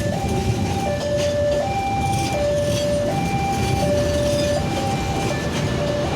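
Railway level-crossing warning alarm sounding, an electronic two-tone ding-dong switching between a lower and a higher note about every three quarters of a second, warning of an approaching train. Under it runs a steady low rumble.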